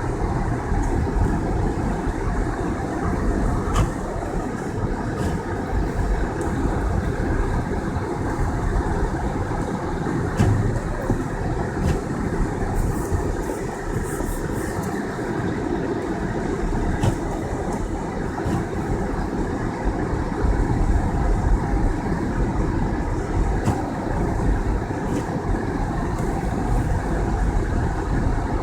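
Car driving on a snowy road: steady engine and tyre noise, with a few scattered small clicks and knocks.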